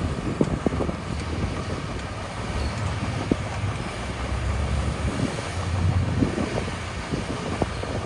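Heavy diesel earthmoving machinery running steadily, with scattered short knocks and clatter.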